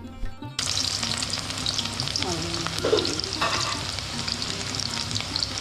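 Chopped onion sizzling as it fries in hot oil in a pan, stirred with a few light spoon clicks. The sizzle starts abruptly about half a second in.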